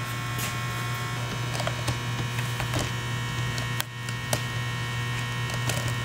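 Steady electrical hum, even in level, with a few faint short clicks and taps scattered through it.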